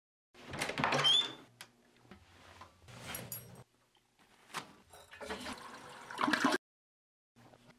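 A toilet flushing, loudest near the end and cutting off suddenly, after several short bursts of other noise.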